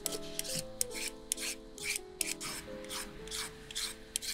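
Metal vegetable peeler scraping strips of skin off a raw carrot in quick repeated strokes, about three a second, over background music.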